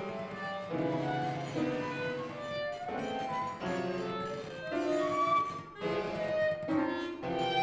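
Music played on bowed strings: a chain of held notes and chords, several pitches at once, changing about every half second to a second.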